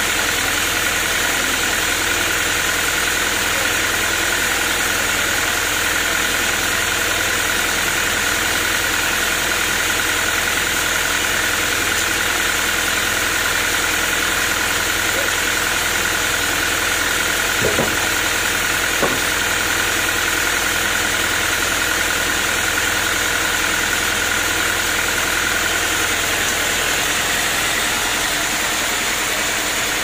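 Band sawmill's engine running at a steady idle with a constant high whine. Two brief knocks come a little past halfway.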